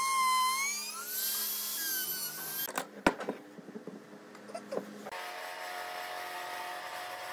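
A compact trim router whines as it cuts a groove in wood, its pitch rising about a second in before it stops. Then come a few sharp knocks of wood being handled on a workbench, one loud. From about five seconds in a band saw runs with a steady hum.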